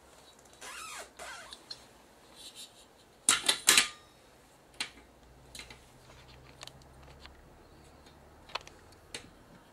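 Workbench handling noise. A brief scraping rub comes about half a second in. About three seconds in there is a quick run of three sharp clacks, the loudest sounds. Scattered light ticks and clicks follow.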